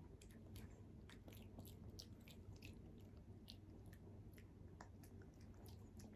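Pekingese puppy chewing dry puppy-food kibble: faint, irregular small crunches and clicks.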